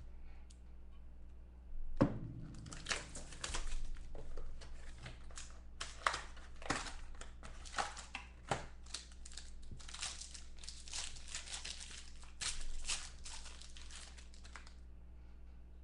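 Plastic wrap crinkling and tearing as a card box and its packs are opened, with a thump about two seconds in and a steady run of rustling and crackling until near the end.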